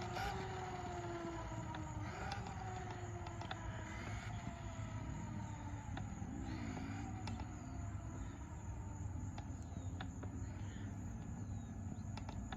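Traxxas Maxx RC monster truck's electric motor whining on a speed pass, falling in pitch and fading over the first few seconds as the truck runs away. After that it is faint, wavering up and down in pitch far off.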